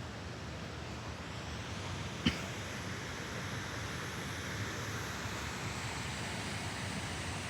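Steady rushing noise of a waterfall, heard from above the falls, with one brief click a little over two seconds in.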